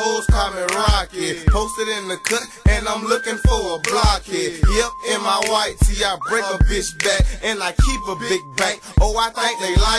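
Hip hop track playing: a rapping voice over a heavy bass beat, with a high held synth line.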